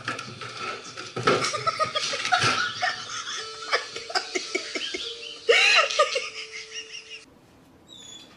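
People laughing and giggling, breaking off abruptly about seven seconds in.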